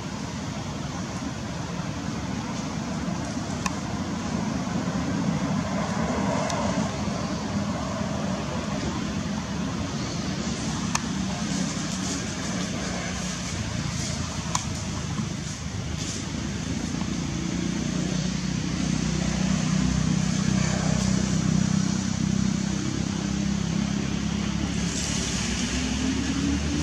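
Steady outdoor background noise with a motor vehicle engine droning, growing louder in the second half, and a few faint clicks.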